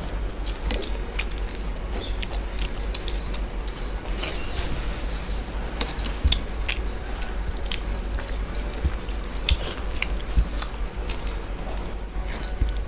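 Close-miked eating by two people: chewing, lip smacks and fingers mixing soft khichuri on steel plates, heard as many small wet clicks and smacks. A steady low hum runs underneath.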